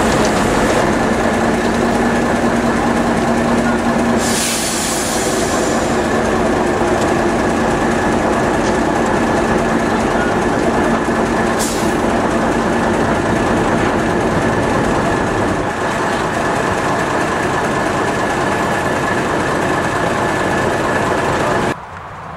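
A locomotive and its coaches running on standard-gauge track, a steady loud mechanical rumble with a brief hiss about four seconds in. The sound drops away sharply near the end.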